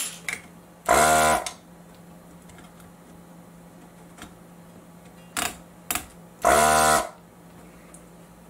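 Spring-loaded solder sucker (desoldering pump) at work pulling solder off the lamp pins. There are two loud, buzzy half-second strokes, one about a second in and one about six and a half seconds in, with a few sharp clicks before and between them.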